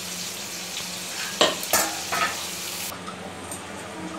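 Spice masala frying in oil in a kadhai on low heat, a steady sizzle, with three sharp metal clanks about one and a half to two seconds in as a steel plate is set on the pan as a lid.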